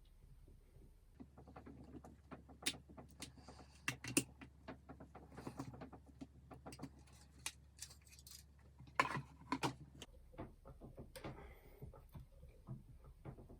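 Irregular small clicks and taps of plastic model-kit parts and screws being handled and screwed back together, with a few louder knocks about three, four and nine seconds in.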